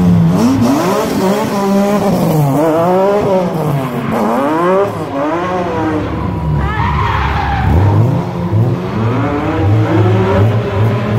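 BMW M3 drift car's engine revving hard up and down over and over as it drifts, the pitch rising and falling about once a second. Tyres squeal partway through.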